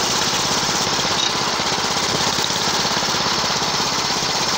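Homemade go-kart's small engine running steadily as the kart drives along, an even, rapid pulsing with no change in speed.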